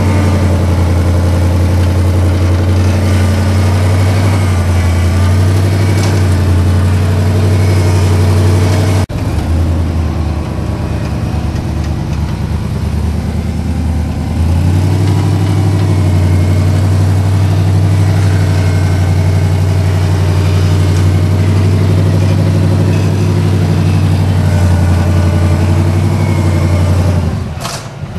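Lifted Ford Bronco with a supercharged 4.6-litre V8 running at low revs as it crawls through a deep rut, a steady engine hum that shifts in pitch a few times. There is a sudden break in the sound about nine seconds in.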